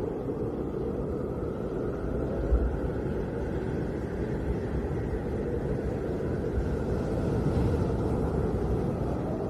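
Snowstorm wind blowing steadily, a low rumbling roar with gusts that swell briefly about two and a half seconds in and again near the end.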